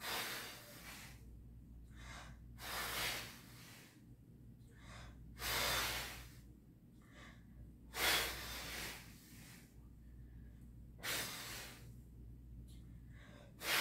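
A woman breathing hard through a set of crunches, with a forceful, hissing exhalation about every two to three seconds as each rep is done, the effort of exercise.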